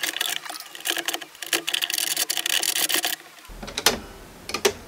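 Plastic gears of a 3D-printed clock movement rattling and rubbing in a rapid run of clicks as the setting knob is turned by hand. After a break about three and a half seconds in, the Swiss lever escapement begins ticking, with two sharp ticks near the end.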